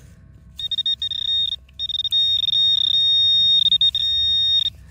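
Metal detecting pinpointer giving a high-pitched electronic beep over a buried metal target. It pulses rapidly at first, then holds a nearly continuous tone. It cuts off sharply just before the end.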